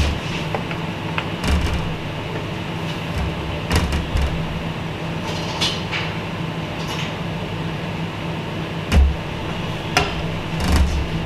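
Steady machine hum, with half a dozen short knocks and scrapes of a scraper against a bowl of melted chocolate.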